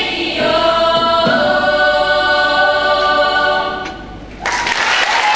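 Young women's choir singing a held closing chord in several voices, which fades out about four seconds in; the audience then starts applauding.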